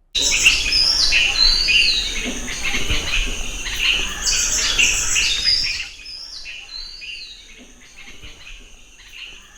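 Birdsong ambience of birds chirping with repeated short whistled calls. It is loud for about the first six seconds, then drops to a much quieter level.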